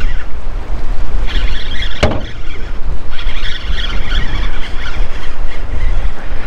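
Wind buffeting the camera microphone, with spells of a fishing reel whirring as a hooked trout is fought. There is a sharp knock about two seconds in.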